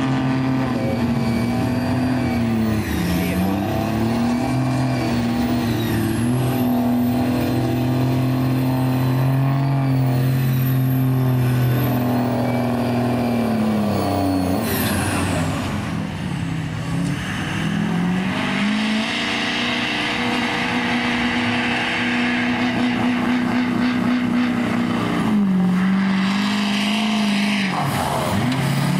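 Diesel pickup trucks at full throttle pulling a weight-transfer sled in a truck pull: first a second-generation Dodge Ram, then a Chevrolet Silverado. The engine note holds steady with brief dips in pitch as the sled bears down. It changes suddenly about halfway through, where one truck's run gives way to the next, which runs with a rushing hiss over its engine note.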